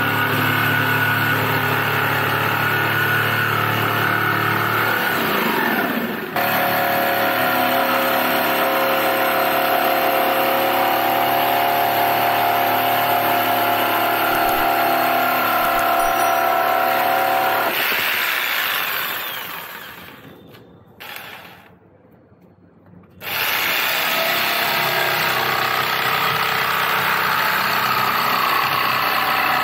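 Ingco 650 W variable-speed jigsaw cutting through wooden boards, its motor and reciprocating blade running with a steady buzz. The saw winds down about two-thirds of the way through, falls quiet for a few seconds, then starts cutting again.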